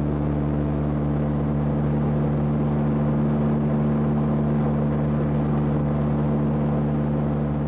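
Airliner engines droning steadily, heard from inside the cabin: an even, unchanging hum made of several low pitched tones over a wash of noise.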